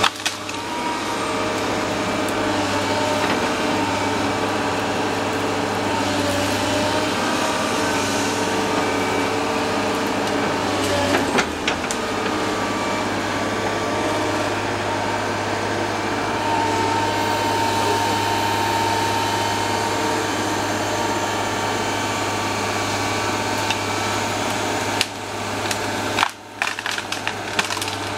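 Excavator engine and hydraulics running steadily while working a tree-felling shear gripper with saw unit. There is a sharp knock about a third of the way in, and a quick series of sharp cracks and knocks near the end.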